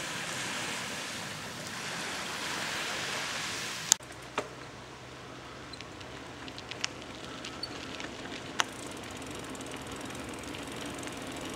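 Steady outdoor rushing noise, broken off by a sharp click about four seconds in. Then quieter open-air ambience with scattered light ticks, and a low engine hum that swells near the end.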